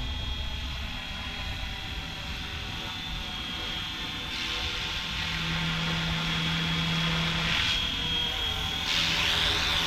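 FlyWing FW450L V3 electric RC helicopter in flight: the steady whine of its brushless motor and spinning rotors, growing a little louder in the second half.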